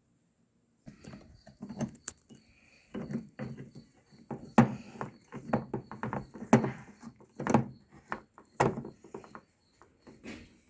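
Irregular knocking and clattering, a series of sharp thuds and clicks, the loudest coming about once a second through the middle, then thinning out near the end.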